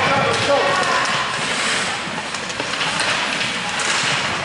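Ice hockey rink din during play: a steady scraping hiss of skates on the ice with a few sharp clicks, and voices shouting in the first second or so.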